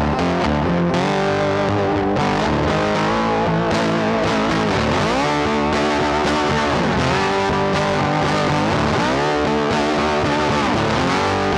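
Background music led by distorted electric guitar, with pitch bends, at a steady level.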